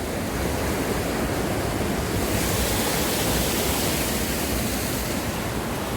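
Waterfall water rushing and splashing over rocks in a steady hiss, which grows brighter for a few seconds from about two seconds in.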